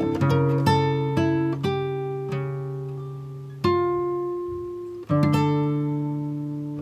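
Background music: an acoustic guitar plucking slow single notes and chords that ring out and fade between strokes.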